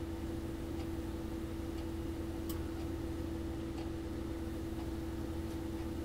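Steady electrical hum with a low rumble underneath, and a few faint, scattered clicks, the clearest about two and a half seconds in.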